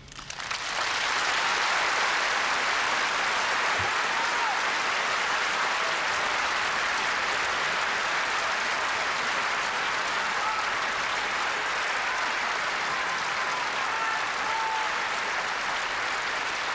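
Large audience applauding: the clapping breaks out just as the music stops, swells within about a second, then holds steady.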